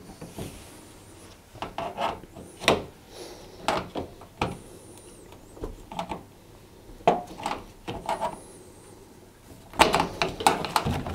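Plastic clips of a tumble dryer's rear heater cover being prised loose with a flat-headed screwdriver: scattered clicks and scrapes of plastic, with a quick run of clicks near the end.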